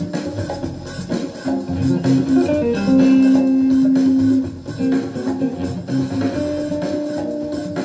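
Jazz guitar with a small band, played back from a cassette tape. A long held note about three seconds in is the loudest part.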